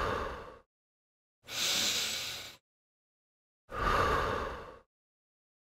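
A person breathing audibly in a slow, even rhythm for the crunch: separate in- and out-breaths about a second long each, with silence between them, alternating between a lower, open-mouthed 'haa' and a thinner, hissier breath.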